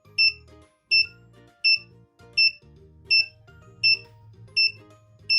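Short, high-pitched electronic beeps repeating evenly, about eight in five seconds, over quiet background music.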